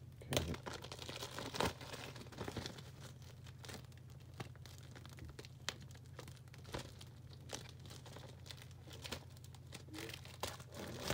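Plastic shrink wrap crinkling and tearing as it is pulled off a Blu-ray case, in irregular crackles that are loudest in the first couple of seconds.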